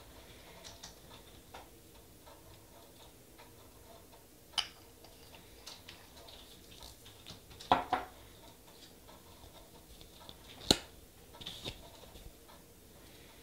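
Small clicks and taps of nail-stamping tools on a stamping plate as an image is picked up and stamped, with faint light ticking throughout. There is a sharp click about four and a half seconds in, a double click around eight seconds, and the loudest click near eleven seconds.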